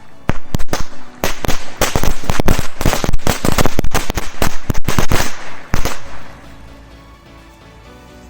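Korsar-3 firecrackers (three bangs each) exploding in a campfire: dozens of sharp bangs in rapid, irregular succession for about six seconds, then stopping.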